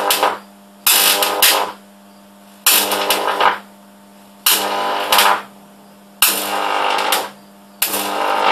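High-voltage arcs drawn from a home-built stacked microwave-oven-transformer supply, struck about five times in a row, nearly two seconds apart. Each arc is a sudden burst of buzzing crackle lasting about a second, and a faint low hum continues between them.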